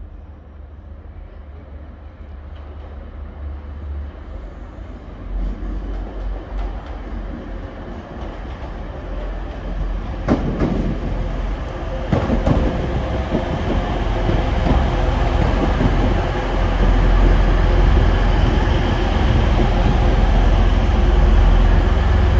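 TransPennine Express Class 185 diesel multiple unit running into the station, growing steadily louder as it approaches. Its wheels give a couple of sharp clacks over the track about ten and twelve seconds in.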